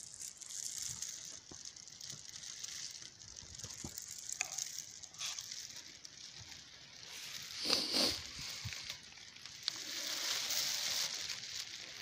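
Leaves and stems of blackberry undergrowth rustling and brushing against each other as someone pushes through the bushes. There is a louder brush about eight seconds in and another stretch of rustling near the end.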